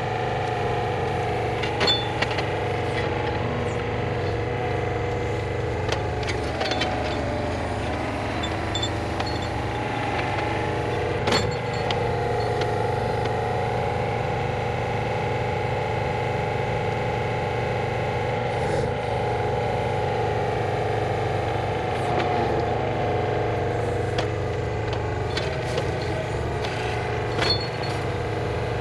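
A machine engine running steadily at an even pitch, with a few sharp knocks now and then.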